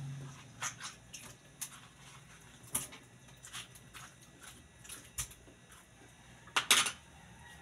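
Scattered soft wet taps and clicks as melon seeds and pulp are scraped out by hand and drop into a stainless steel sink, with a louder double knock about six and a half seconds in.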